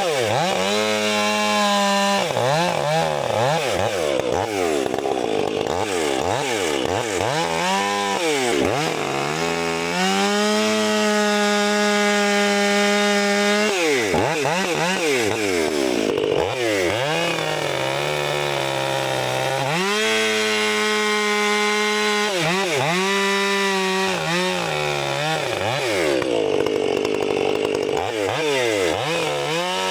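Gas chainsaw running at high revs and cutting wood, its engine pitch dipping and recovering again and again as it bogs in the cut and frees up, with a couple of steady full-throttle stretches in between.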